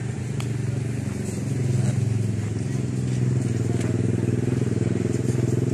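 A motor vehicle engine running steadily at idle, a little louder from about two seconds in.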